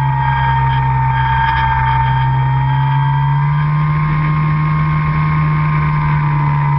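RC airplane's motor and propeller running steadily in flight, heard from an onboard camera: a low drone under a high whine, both rising slightly in pitch about halfway through.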